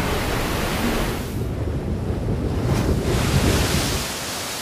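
A rushing, hissing wash of water and wind, dulling for a moment in the middle and then fading away near the end.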